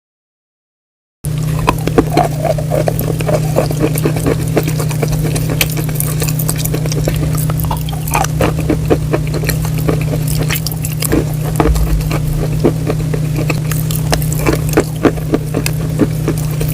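Close-miked ASMR eating: crisp food being bitten and chewed, with many irregular crunches and crackles over a steady low hum, starting about a second in.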